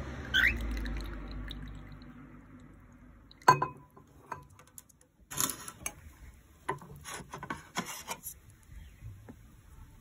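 Tea pouring into a glass cup trails off over the first two seconds, with a short rising cockatiel chirp just after it begins. About three and a half seconds in comes a sharp clink of glassware, then scattered light taps and clicks as the cockatiel dips its beak into a water bowl.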